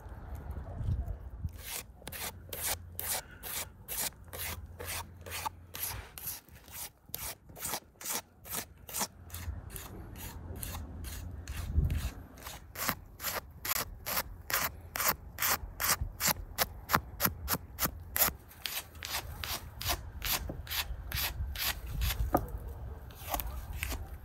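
A knife blade scraping the hide of a raw beef leg on a wooden cutting board, in repeated short rasping strokes, about two to three a second, starting a second or two in.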